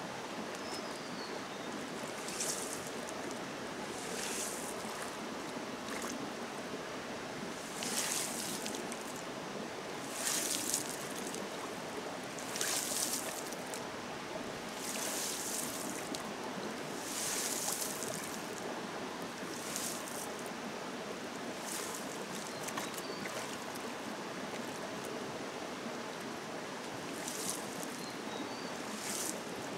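Hands scooping and splashing water in a shallow muddy pool, a splash every couple of seconds with a longer gap in the middle, over the steady rush of a stream. A few faint bird chirps.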